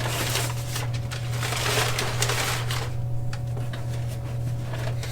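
Packing material rustling and crinkling as a box of parts is unpacked by hand, busiest in the first three seconds and then in short scratchy bits. A steady low hum runs underneath.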